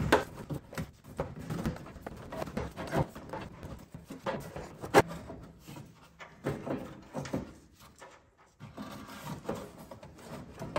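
SOUL valved bypass pipe being worked into a Porsche Boxster 986's exhaust, metal pipes and clamps knocking and scraping as it is lined up and pushed in. The clicks and clunks are irregular, with the loudest about five seconds in.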